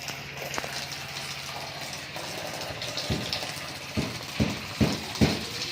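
A Holstein-Friesian cow being hand-milked: milk squirts into a pail in a regular rhythm, about two to three strokes a second, starting about three seconds in over a steady low hum.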